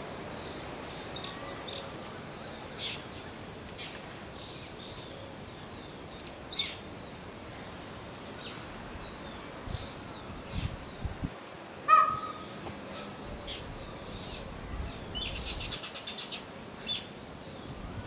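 A steady high insect drone with scattered short bird chirps. About two-thirds of the way through comes one short, loud call, the loudest sound here, and near the end a fast rattling run of ticks.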